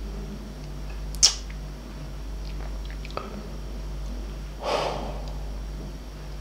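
A man's quiet sniff and breath while choked up with emotion: a short sharp sniff about a second in, faint mouth clicks, and a longer breath later on, over a low steady hum.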